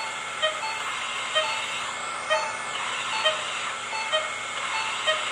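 Hospital patient monitor beeping at an even pace, about once a second, over a steady background hiss.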